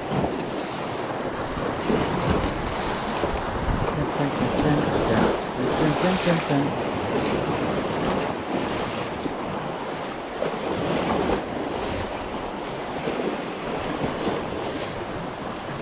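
Small waves breaking and washing over shoreline rocks, swelling and easing every few seconds, with wind buffeting the microphone.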